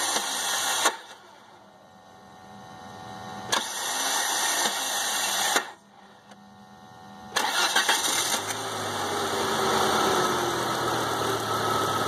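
Car starter with a weak Bendix drive: it engages, turns the flywheel briefly, then kicks out and spins with a grinding noise instead of starting the engine. One attempt cuts off about a second in and a second runs for about two seconds. On the third try, about seven and a half seconds in, the engine catches and settles into a steady idle.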